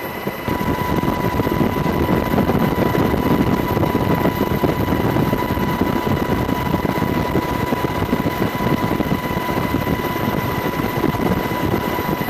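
Steady helicopter noise: dense, fast-flickering rotor and engine noise with a steady high turbine whine over it.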